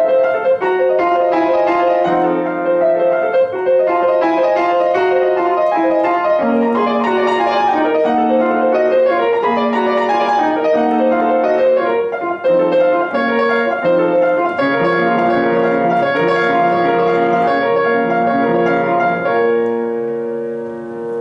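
Solo piano playing a classical piece, ending on a held final chord that rings and fades out near the end.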